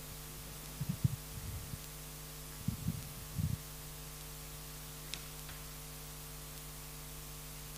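Steady low electrical hum, with a few soft low bumps around one second and around three seconds in.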